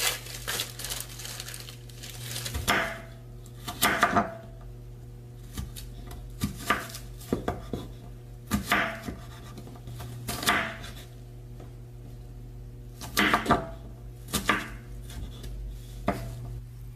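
Chef's knife chopping a peeled onion on a wooden cutting board: irregular knocks of the blade cutting through onto the board, in short runs of a few strokes with pauses between.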